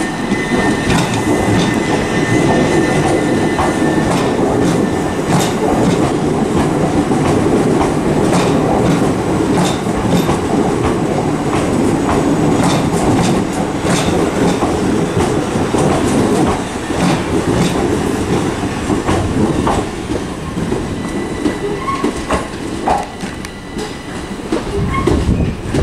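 Southern Class 377 electric multiple unit pulling out of the platform and running past, its wheels clicking over rail joints. A steady high tone from the train sounds for the first few seconds and then fades, and the overall noise eases slowly as the train draws away.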